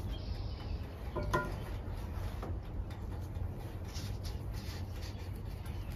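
Faint rustling and light scraping of hands firming potting soil around cuttings in plastic pots, over a steady low rumble. A short pitched call sounds once, about a second in.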